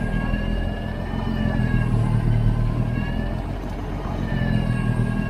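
New Holland L85 turbo-diesel tractor engine running steadily under load while driving the PTO two-stage snowblower through heavy snow, with a high whine over the low drone that wavers gently in pitch.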